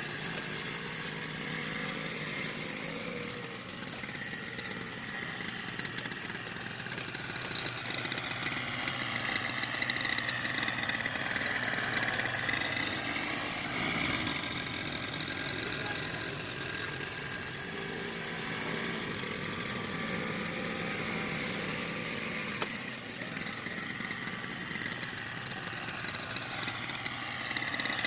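A small engine running steadily, its pitch sagging and rising again a couple of times as if under changing load.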